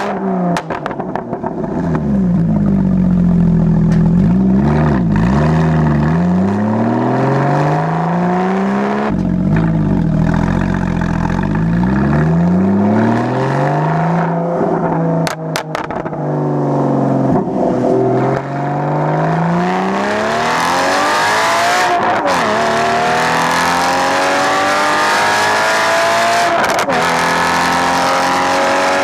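Straight-piped exhaust of a Porsche Boxster 981's flat-six, driven hard through a manual gearbox: the pitch climbs as it accelerates and drops sharply at each gear change, several times over, with stretches of lighter throttle and lifts in between.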